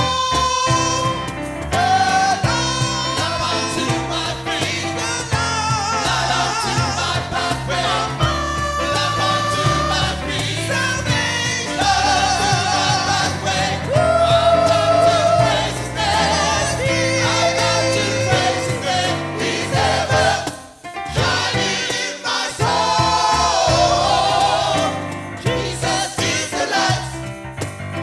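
Gospel choir singing an upbeat 1960s–70s UK Caribbean church gospel song over a steady bass line, with a brief dip in loudness about three quarters of the way through.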